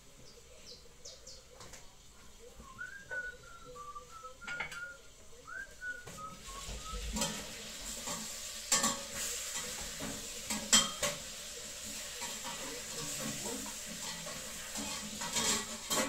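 Food sizzling in a hot pan from about six seconds in, with a metal utensil stirring and clinking against the pan several times. Before the sizzle starts, a bird whistles a run of short notes.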